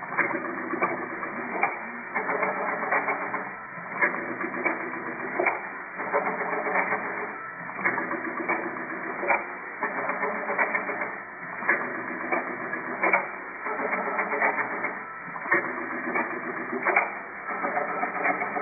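Automatic through-hole component insertion machine running its cycle: a sharp clack about every 1.3 seconds, each one an insertion stroke placing a part into the printed circuit board, with mechanical clatter between strokes.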